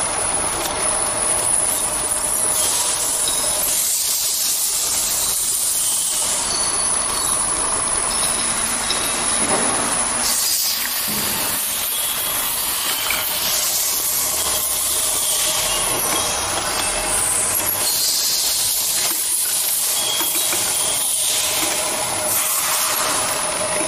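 Automatic double-sided bottle labeling machine running: conveyor, rotary bottle table and label applicators give a steady hissing machine noise, with a thin high-pitched whine that comes and goes.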